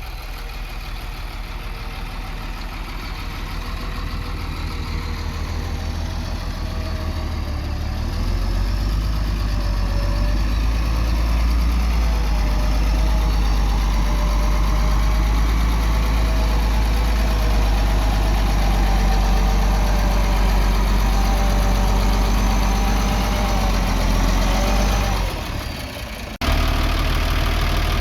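Heavy machinery's diesel engine running steadily under work, with some wavering whine over it. It grows louder about a third of the way in, dips near the end, then comes back suddenly.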